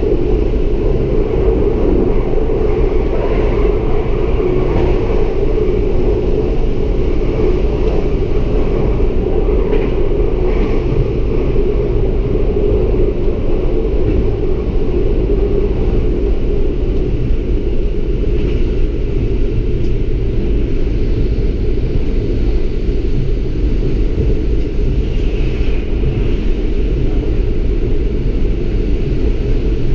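Lint 41 diesel railcar running along the track, heard from the driver's cab: a steady, even drone and rumble with no breaks.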